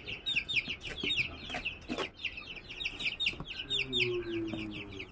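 Aseel chicks peeping: a continuous stream of short, high, falling peeps, several a second, with a few sharp knocks among them.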